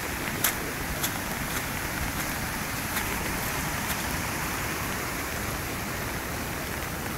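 Waterfall rushing steadily, a dense hiss of falling and splashing water, with a few short sharp ticks over it.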